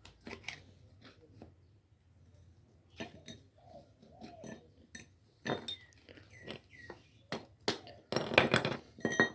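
Steel motorcycle suspension linkage parts and bearings being handled and knocked together: irregular sharp metallic clinks and taps, some ringing briefly, with a quick run of knocks near the end.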